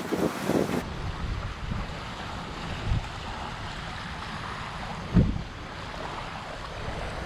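Wind rumbling on the microphone over small sea waves washing on a beach. There is a low thump about three seconds in and a louder one about five seconds in.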